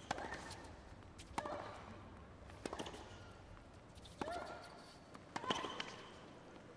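Tennis rally on a hard court: the ball is struck by rackets back and forth, five sharp hits about a second and a half apart. Several hits are followed by a short pitched squeak.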